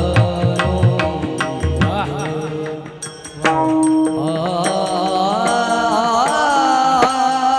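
Marathi devotional singing with instrumental accompaniment: low drum strokes for the first two seconds, a brief dip about three seconds in, then a long, wavering held sung line over steady accompanying tones, with sharp regular clicks.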